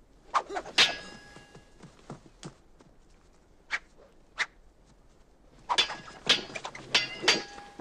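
Steel sword blades clashing in a duel. There are a few sharp ringing clashes about a second in and scattered single blade hits after them, then a rapid flurry of ringing clashes near the end.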